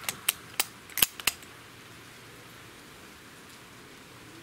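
Bolt of a Gletcher Mosin Nagant M1891 CO2 BB rifle being cycled to chamber the next BB: a quick run of about six metal clicks and clacks within the first second and a half, the loudest about a second in.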